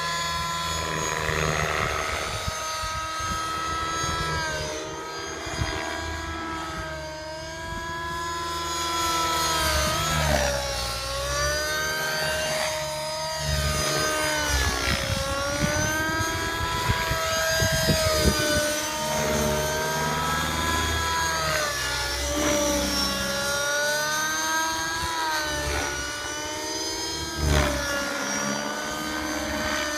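Align T-Rex 600 Nitro Pro DFC radio-controlled helicopter in flight, its OS 55 HZ Hyper two-stroke nitro engine running with a steady whine whose pitch keeps dipping and rising as it manoeuvres.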